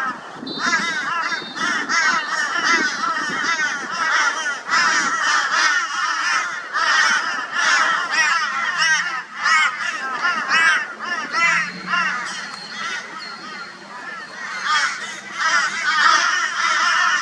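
A flock of crows giving loud, harsh, overlapping caws without pause: a mobbing chorus raised at a barn owl.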